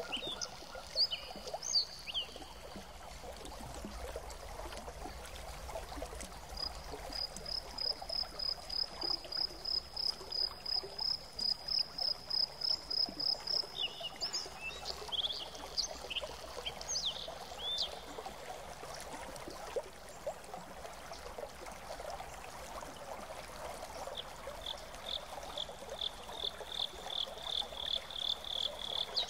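Garden ambience of steadily trickling water with small birds calling: a long, even trill of high notes about a quarter of the way in, scattered short chirps around the middle, and a second, lower trill near the end.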